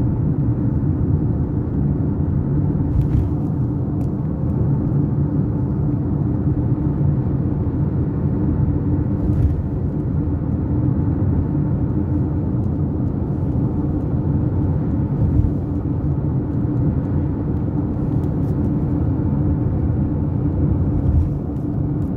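Steady low rumble of road and engine noise heard from inside a moving vehicle travelling at speed.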